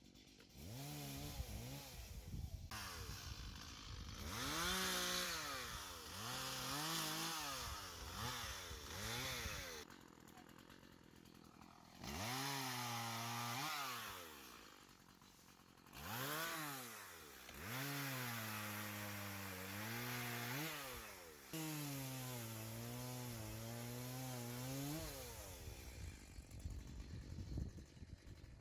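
Chainsaw engine revved in repeated bursts, its pitch climbing and dropping again and again, with a couple of short lulls between them.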